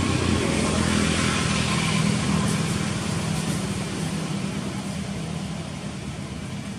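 A motor vehicle's engine running as a steady hum, loudest in the first two or three seconds and then slowly fading.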